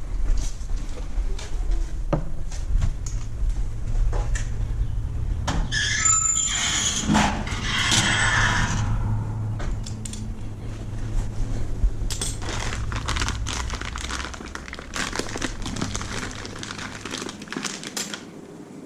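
Power drill enlarging the lock hole in a steel garage door to 16 mm: the drill runs steadily, the bit squeals against the metal around six to nine seconds in, with knocks and clicks, and the drill's hum dies away near the end.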